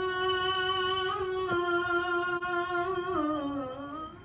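A single voice holding one long sung note, stepping down in pitch twice near the end before it stops, as in a vocal-only background track.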